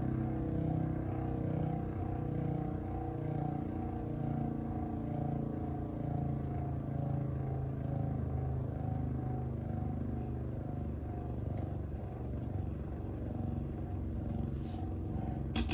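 A Beyblade, Divine Belial on its Adventure driver with the VS gear fitted, spinning in a plastic stadium: a steady whirring hum. It ends in a short clatter of sharp clicks.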